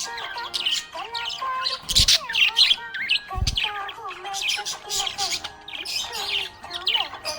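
Budgerigars chirping and chattering in quick, busy bursts over background music, with two low thumps about two and three and a half seconds in.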